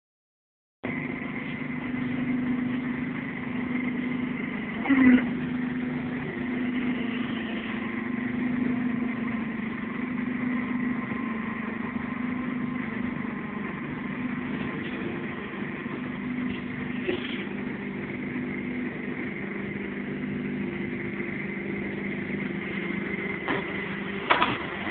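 Mobile tyre-cutting machine running steadily, its motor holding an even pitch while the cutting arm works down onto a stack of car tyres. A single sharp clank about five seconds in.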